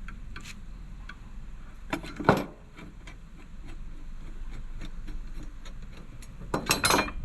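Screws and metal brackets being taken off an old wooden shelf with hand tools: scattered small clicks and taps, a louder knock about two seconds in, and a burst of clatter near the end.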